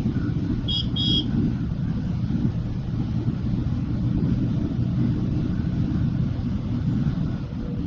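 Steady low rumble of a vehicle in motion, with two short high-pitched beeps about a second in.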